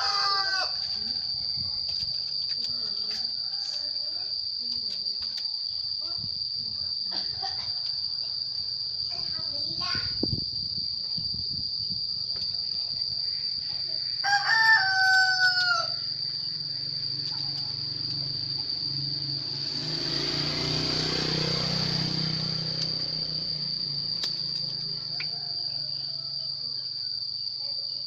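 A rooster crows twice, right at the start and again about halfway, the second crow the loudest sound. Under it runs a steady high insect trill, with short bird chirps scattered in the first third. A rushing noise swells and fades about three-quarters of the way through.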